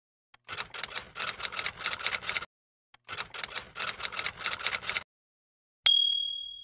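Typewriter sound effect: two runs of rapid key clacking, each about two seconds long with a short pause between, then a single bell ding near the end that rings on and fades.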